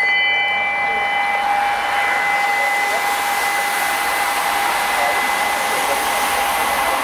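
A bunch of racing bicycles passing close, making a steady rushing hiss of tyres and wind. Under it, a bell's ringing tone slowly fades away.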